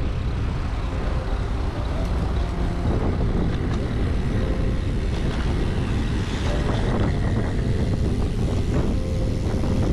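Steady wind rumble on the microphone with road noise from a bicycle ride, with a few faint clicks in the second half.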